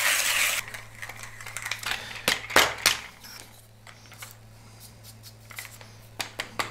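Hand coffee grinder crushing beans in its burrs, stopping about half a second in. Then scattered clicks and knocks as the grinder is handled, with a few sharper taps two to three seconds in and a run of quick ticks near the end.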